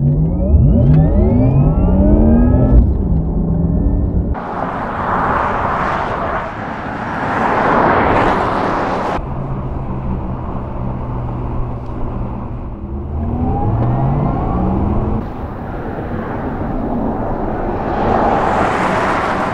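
Porsche Taycan Turbo electric sports car accelerating, its electric drive whine rising in pitch, then the rush of tyres and wind as it drives past. The first pass cuts off suddenly about nine seconds in. Another rising whine comes around thirteen seconds, and a second pass builds near the end.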